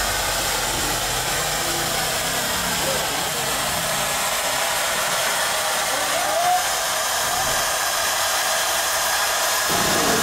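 Steam hissing steadily from a small steam locomotive, a continuous loud rush that changes abruptly near the end.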